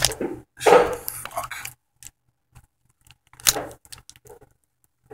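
Handling noise from a plastic action figure and its small weapon accessories: a sharp knock at the start, a busy clatter and rustle for about a second, and another short burst of clatter near the middle.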